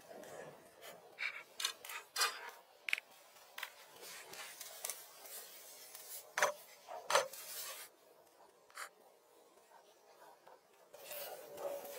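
Irregular scraping, rubbing and sharp knocks from hand work, with two louder knocks about halfway through and a quieter spell near the end.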